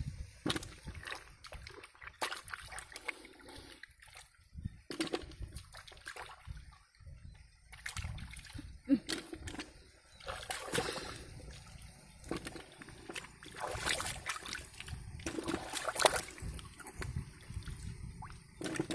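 Shallow muddy water splashing and sloshing as a person wades through it, in short irregular splashes.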